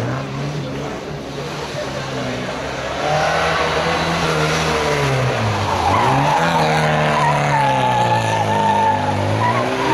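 Classic Mini's four-cylinder engine revving up and down as the car is driven hard through tight turns, the revs dropping and climbing again about halfway. Tyres squeal through the second half.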